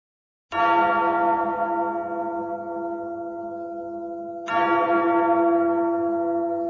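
A large bell tolls twice, about four seconds apart, each stroke ringing on and slowly fading.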